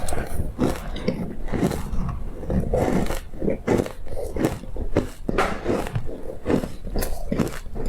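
Close-miked biting and crunching of frozen green matcha ice: a quick run of powdery crunches, one after another.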